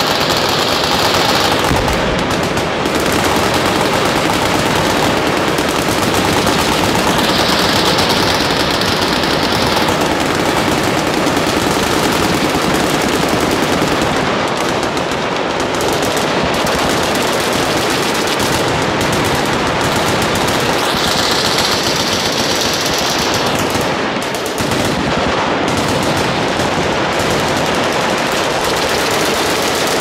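Massed automatic fire from many machine guns firing at once along a firing line, a dense, unbroken din of overlapping shots.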